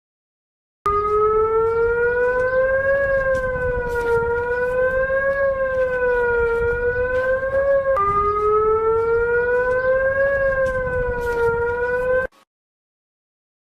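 Emergency-alert (EAS) alarm tone: a siren-like wail whose pitch slowly rises and falls, with a crackling hiss underneath. It starts about a second in, drops back down in pitch about eight seconds in, and cuts off suddenly a little before the end.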